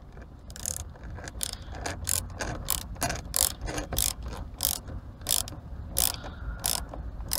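Hand ratchet clicking in short, irregular strokes, two or three sharp clicks a second, as a screw is worked into the steering wheel frame.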